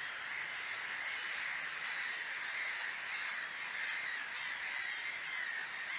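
Continuous chorus of animal calls, many overlapping calls forming a steady, wavering high-pitched band without pauses.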